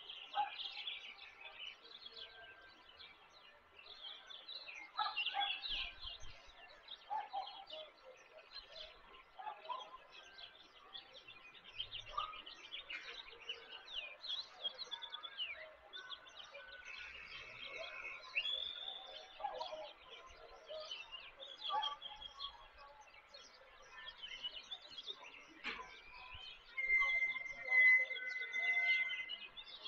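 Several birds chirping and calling, many short overlapping chirps and trills, with a long steady whistled note near the end.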